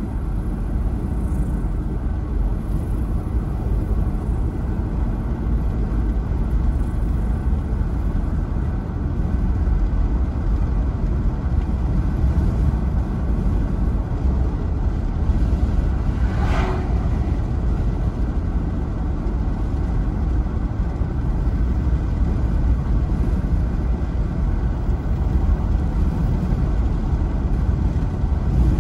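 Steady low rumble of road and engine noise heard inside a moving car's cabin, with one brief higher-pitched sound a little past halfway.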